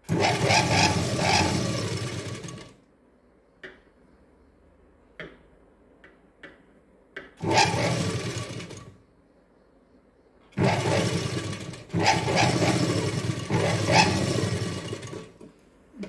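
Motor-driven sewing machine stitching a seam in three runs: one of about two and a half seconds at the start, a short run of about a second and a half midway, and a longer run of about five seconds in the second half, with a few light taps in the pauses between.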